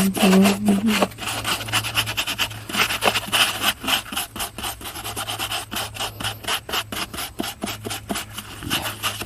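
Rapid scraping strokes, several a second, as excess hot glue is scraped off the inside of a portable refrigerator's compartment while the glue is still hot. A steady low hum runs beneath.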